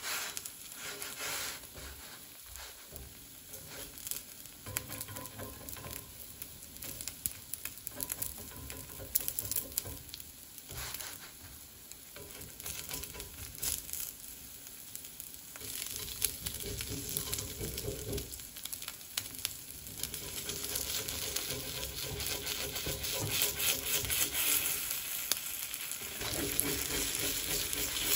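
Food sizzling in a cast iron skillet, with a utensil stirring and knocking against the pan. The sizzle grows louder in the second half.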